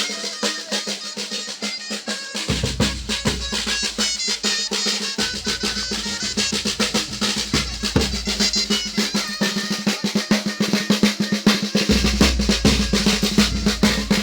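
Percussion-led music: fast, dense drum strokes over a steady low drone, with high melodic notes above and deep bass notes coming in and out.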